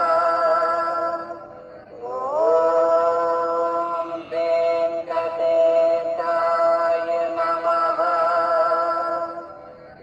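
Devotional chanting on the soundtrack: a voice holding long, steady notes. One note fades out about a second and a half in. The next slides up into pitch about two seconds in and is held for some seven seconds before fading near the end.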